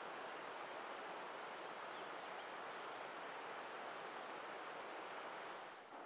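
Steady outdoor background hiss among conifers, with a few faint, thin, high bird notes. The level dips briefly near the end.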